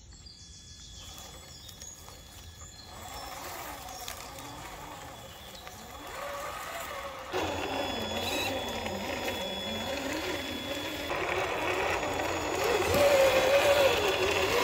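Traxxas Pro Scale winch's small electric motor whining as it reels in the line and drags a log. Its pitch wavers up and down with the load, and it grows louder about seven seconds in and again near the end.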